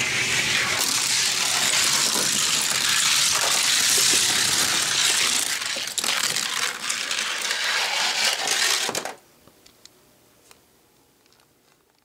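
Die-cast toy cars rolling fast down a plastic gravity-racing track: a loud rattling hiss of small wheels on the track, with scattered clacks. It cuts off abruptly about nine seconds in, leaving a few faint clicks.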